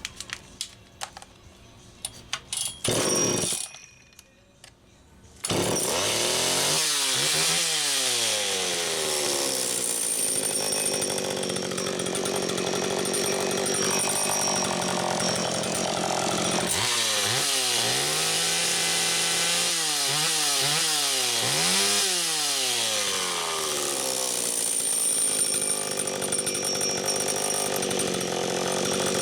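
Homelite Super EZ Automatic two-stroke chainsaw being started and run. After a few clicks and a short loud burst, it starts about five seconds in, then runs steadily with several revs up and back down between idle.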